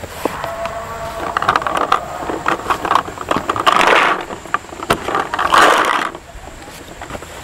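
Close rustling and clattering of a paintball player's gear as he crouches and moves, with many sharp clicks and rattles and two louder rustles about four and six seconds in.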